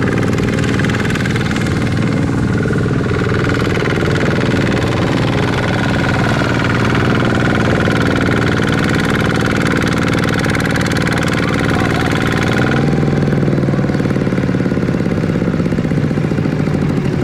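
Single-cylinder diesel engine of a two-wheel walking tractor running hard under load as its mud-caked wheels churn through a muddy paddy field, pulling a trailer stacked with rice sacks. The engine note changes about thirteen seconds in.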